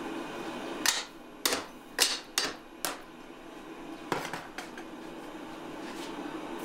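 About seven sharp metal clanks and knocks, mostly in the first three seconds, as tongs and hot steel are handled at a blacksmith's twisting rig. A steady low hum runs underneath.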